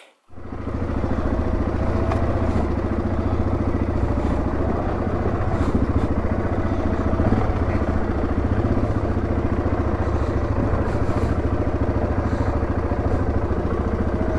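Yamaha Grizzly 700 ATV's single-cylinder engine running steadily under way up a steep trail hill. It cuts in suddenly just after the start.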